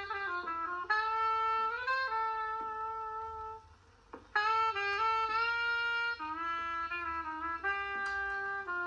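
Music: a single horn plays a slow melody of held notes, with some slides between them, and breaks off briefly about four seconds in.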